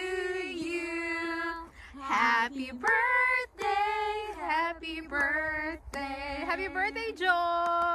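A few women singing a song together without accompaniment, in phrases of held notes with short breaks, with a few hand claps.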